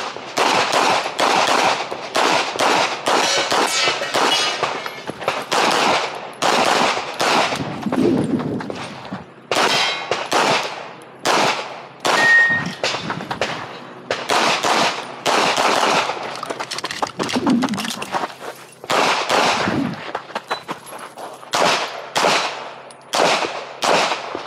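CZ Shadow 2 9mm competition pistol fired in fast strings of shots, mostly pairs in quick succession, with short pauses between strings as the shooter moves and changes targets. A brief metallic ring sounds near the middle.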